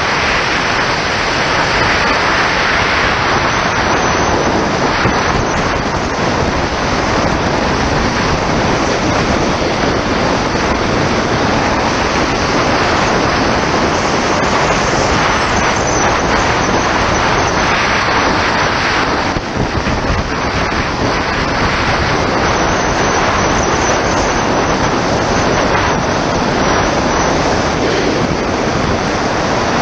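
Steady, loud wind noise on the microphone of a camera riding a bicycle fast downhill, easing for a moment about two-thirds of the way through.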